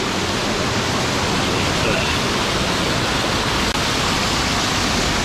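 Steady rush of fast-flowing river water and cascades, an even continuous roar of water.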